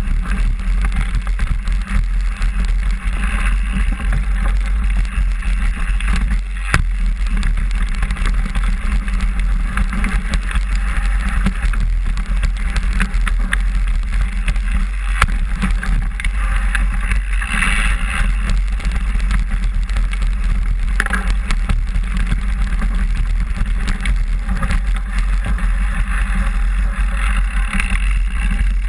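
A mountain bike rolling fast down a dirt forest trail, heard through a bike-mounted action camera: a steady loud low rumble of tyres, frame vibration and wind, with a few sharp knocks from bumps, a clear one about seven seconds in and another near the middle.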